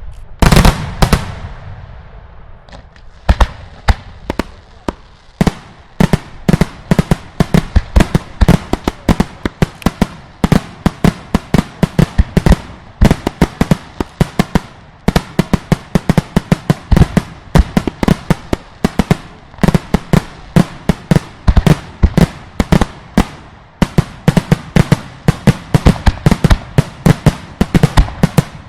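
Daylight fireworks display firing loud explosive bangs. A few big reports open it, there is a short lull about two seconds in, then the bangs come thick and fast, several a second, for the rest of the stretch.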